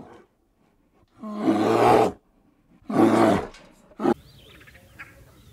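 A big cat roaring: a short call, then two long, loud roars about a second apart and a brief last one. Near the end, faint bird chirps over a low background hiss.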